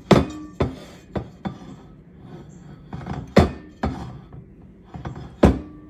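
A metal mesh sieve and Bundt pan handled while cocoa powder is sifted into the pan: about half a dozen irregular sharp taps and knocks, the loudest about three and a half and five and a half seconds in.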